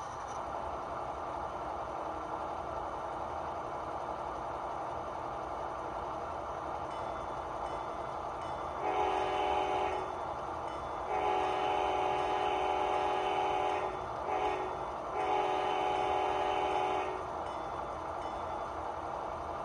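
Digital sound of a model diesel locomotive played through its small onboard speaker: the diesel engine runs steadily while the multi-chime air horn blows the grade-crossing pattern, long, long, short, long.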